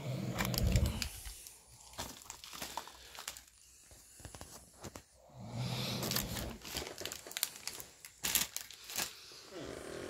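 Crinkling and tearing of packaging as items are handled, with a man snoring in slow swells about every five seconds: at the start, about halfway through and near the end.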